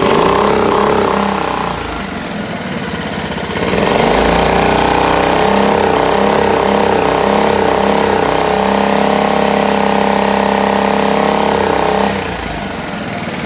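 Briggs & Stratton 5 hp air-cooled outboard motor running in forward gear with the propeller out of the water. It is revved up briefly, drops back to idle, then is held at high speed for about eight seconds before settling back to idle near the end.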